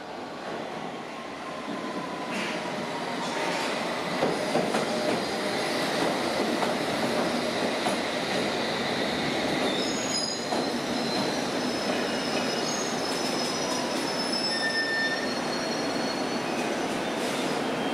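London Underground S7 Stock Circle/District line train pulling into an underground platform. Its running noise grows over the first few seconds and then holds steady, with high-pitched wheel squeals through the second half as it slows alongside the platform.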